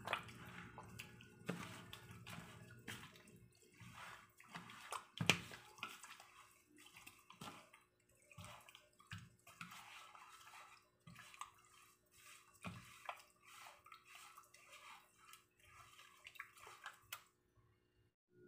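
Faint wet squelching and sloshing in irregular bursts as a gloved hand squeezes and turns raw chicken pieces in a plastic bowl of liquid marinade.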